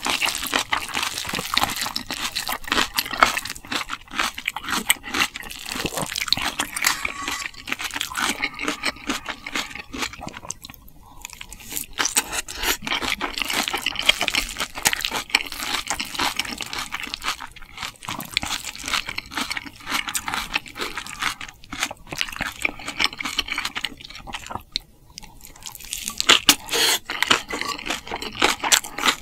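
Close-miked eating sounds: wet chewing and crunching of spicy Korean food, dense with small clicks, with brief lulls about eleven seconds in and again around twenty-five seconds.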